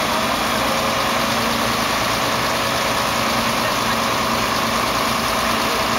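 Volvo truck's diesel engine idling steadily, with an even drone, while its raised tipper body is lowered.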